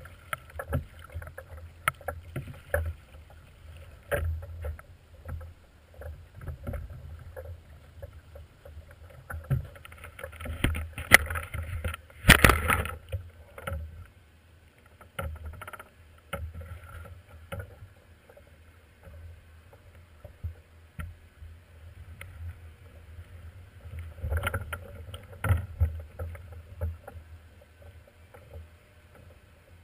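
Wooden paddle splashing in the water and knocks and bumps against the hull of a small plywood sailboat, with two loud bangs about 11 and 12 seconds in.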